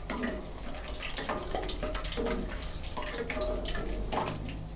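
Dried red chillies frying in hot oil in a pan: a steady crackling sizzle with many small pops, while a wooden spatula stirs them.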